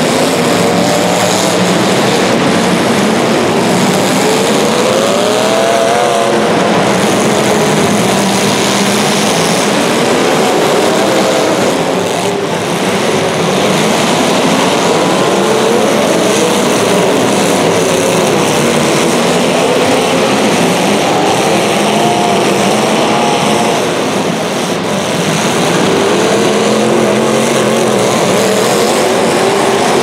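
Several demolition derby cars' engines revving hard, loud and continuous, their pitch rising and falling again and again.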